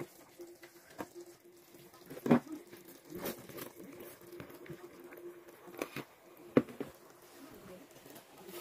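A wooden spoon knocks sharply against a metal pot now and then while stirring caramelized sugar syrup. Dry rice pours into the pot with a patter about three to four seconds in and is then stirred through. A faint steady hum sits underneath.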